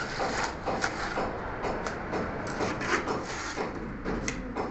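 A jumble of irregular knocks, taps and scraping, several a second, over a low rumble.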